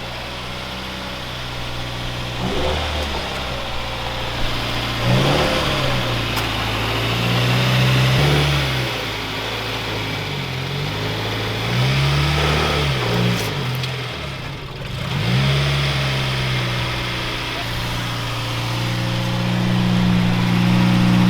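Car engine running, its pitch rising and falling several times as it is revved, with steadier idle-like stretches between.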